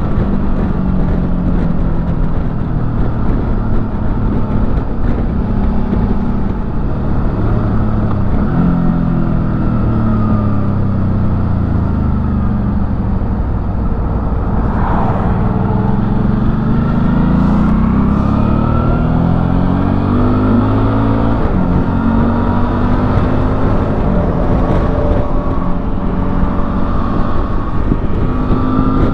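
2007 Suzuki V-Strom 650's V-twin engine running under way, its pitch falling and rising again several times as the rider rolls off, changes gear and accelerates, heard through a microphone inside the rider's helmet.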